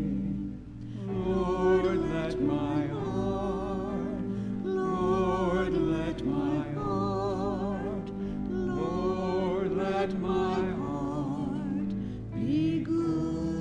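A woman singing a slow hymn solo with a wavering vibrato, accompanied by sustained piano chords, in phrases with short breaths between them.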